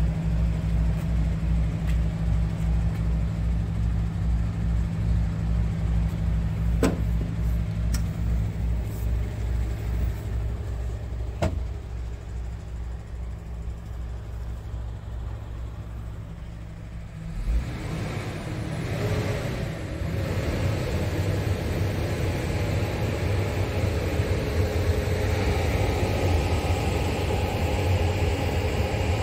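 Scania R410's 13-litre six-cylinder diesel idling with a steady low, pulsing throb. There are a couple of faint clicks, then a thump a little past halfway, after which the sound turns busier with more hiss over the rumble.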